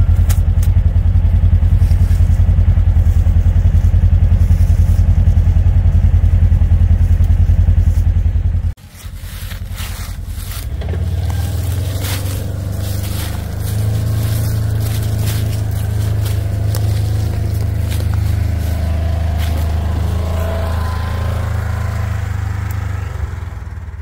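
A loud steady low engine drone for about the first nine seconds, which cuts off abruptly. Then a Polaris Ranger XP1000 side-by-side drives over a leaf-covered woods trail: its engine runs steadily while the tyres crunch and scrape through dry leaves.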